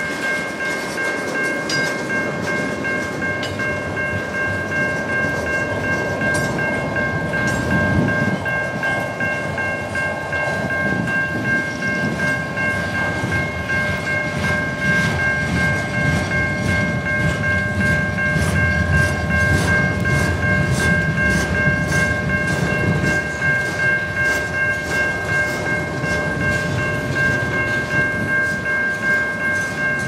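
Freight train of tank cars rolling steadily past: a low rumble of wheels on rail with repeated clicks as the wheels cross rail joints. A level-crossing warning bell rings steadily over it.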